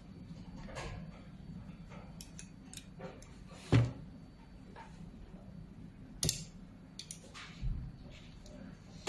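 Clicks and knocks of a metal xenon-lamp assembly being handled and turned over on a workbench, with a sharp knock about four seconds in, another about six seconds in and a dull thump shortly after, over a steady low hum.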